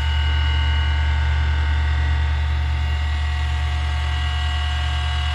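Valve refacing machine running steadily as its stone grinds a fresh 45-degree face on a valve: a strong low hum with several steady whining tones above it.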